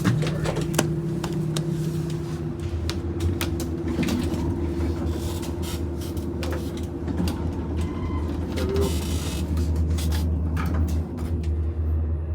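Hydraulic elevator cab travelling: a steady low hum and rumble that settles in a couple of seconds in, with small clicks and rattles over it.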